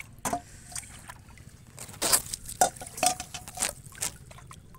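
Water splashing and sloshing in a stainless steel bowl as it is dipped and tipped in shallow water, in a series of irregular splashes. The loudest comes about two seconds in, and a faint metallic ring follows one of the splashes.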